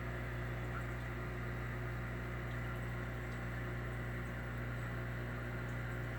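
Aquarium equipment running: a steady low hum with a faint hiss underneath.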